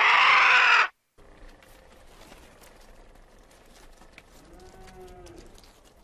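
A loud animal call about a second long at the start. Then faint background with scattered clicks, and a soft, wavering animal call about four and a half seconds in.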